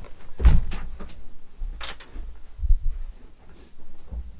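A door being handled: a few separate knocks and thumps, the loudest about half a second in.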